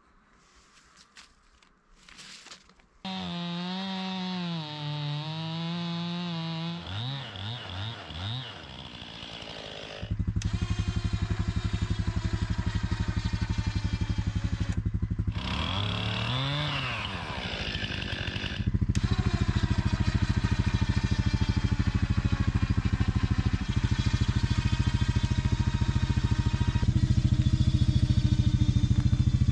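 Four-wheeler (ATV) engine running while its winch hauls a log on a cable. After a nearly silent start it drones steadily, its speed rises and falls once about halfway through, then it runs steadily and louder for the last ten seconds or so.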